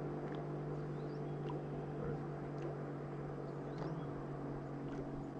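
A small fishing boat's motor running steadily with a low, even hum.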